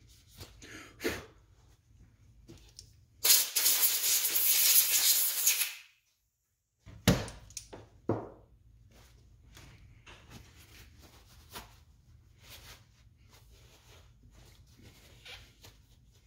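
Compressed-air blow gun blasting for about two and a half seconds, drying freshly degreased Fox shock parts. About a second later come two sharp knocks of parts being set down.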